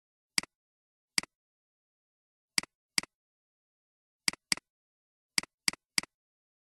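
Computer mouse clicks: nine sharp, identical clicks at an uneven pace, each a loud tick followed at once by a softer one, against total silence.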